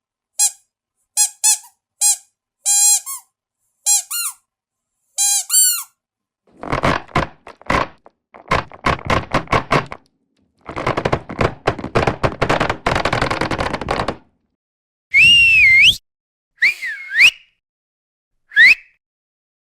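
A string of short, high squeaks like a squeezed squeaky toy, then a long run of rapid crackling pops like bubble wrap being popped, then three swooping whistles that bend up and down.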